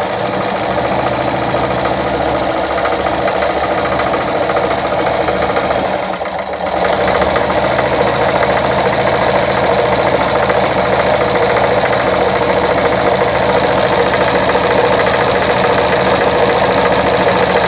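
Straight-stitch sewing machine running steadily, sewing through a zigzag attachment foot. It eases briefly about six seconds in, then runs at an even speed again.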